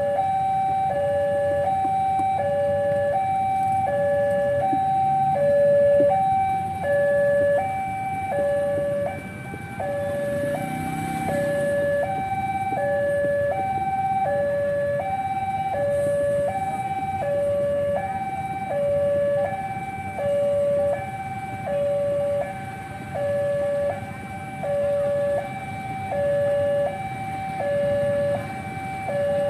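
Railway level-crossing warning alarm sounding a steady electronic two-tone signal, a higher and a lower tone alternating about every two-thirds of a second, warning that a train is approaching. A low rumble of waiting traffic runs underneath.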